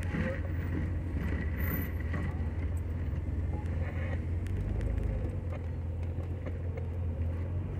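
Jeep engine running steadily as it drives along a dirt trail, a constant low drone heard from inside the vehicle.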